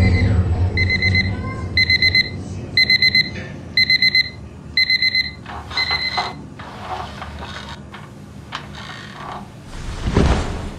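Digital alarm clock beeping: about six groups of four quick high beeps, one group a second, stopping about six seconds in. Near the end, a short swelling whoosh.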